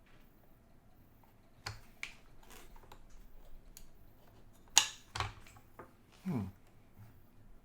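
Scattered clicks and taps of a handheld clamp meter being handled and its buttons pressed, the loudest about five seconds in, with a short low sound falling in pitch a little after.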